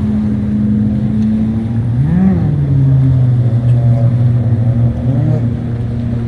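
Motorboat engine running with a steady drone, its pitch rising and falling briefly about two seconds in and again, more slightly, about five seconds in.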